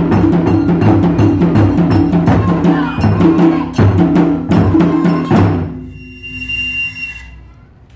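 Taiko ensemble of barrel drums (nagado-daiko) struck with wooden sticks in a fast, driving rhythm, ending on a final hit about five and a half seconds in that rings out and fades. A high flute note is then held for about a second.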